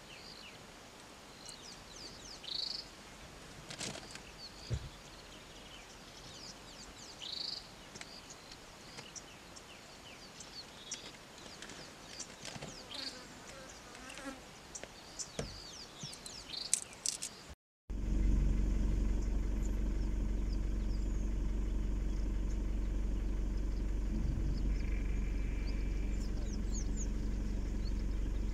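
Short high-pitched chirps and calls over quiet bush background. About two-thirds of the way in, this gives way to a vehicle engine idling with a steady low hum, heard from inside the cabin.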